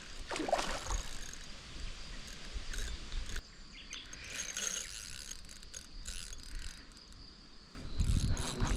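Light ticking of a fishing reel's ratchet while a hooked carp is played. A heavy rumble of handling starts near the end.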